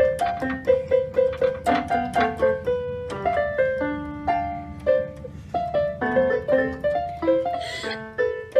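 Portable electronic keyboard played by hand in a quick melody of single piano-voiced notes, about three or four a second.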